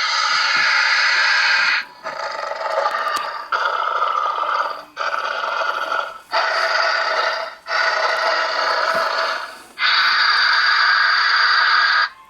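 Xenomorph hissing and screeching sound effects played from the life-size Big Chap figure's built-in speaker: seven noisy bursts of one to two seconds each, one after another.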